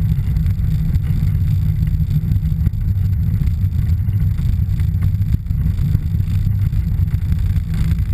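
Piper PA-28-161 Warrior III's 160 hp Lycoming O-320 piston engine and propeller running steadily at low power as the aircraft taxis, heard from inside the cabin as an even, loud low rumble.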